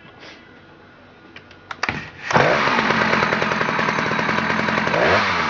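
Husqvarna 2100 CD two-stroke chainsaw, a 6 cubic inch saw, being started: a few clicks and a starter pull, then the engine catches about two seconds in and runs with an even beat, briefly changing pitch near the end. The owner thinks it has a little bit of a bearing noise.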